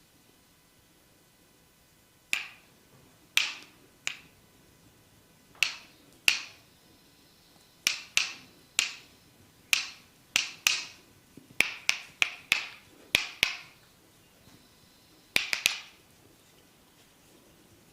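A series of about twenty sharp pops from a barber's hands during a massage, spaced irregularly with some in quick runs of three or four, each with a short ringing tail.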